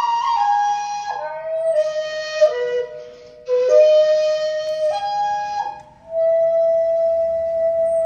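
Madake bamboo shakuhachi, a 1.7 (D) jimori flute, played solo. It plays a phrase of several notes stepping down, with breath audible in the tone and short breaks about three and a half and six seconds in. It ends on one long held note.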